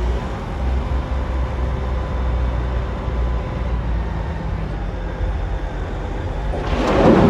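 Caterpillar wheel loader's diesel engine running steadily under load with its bucket raised over a dump truck. Near the end a rush of loose material starts pouring from the bucket into the truck bed.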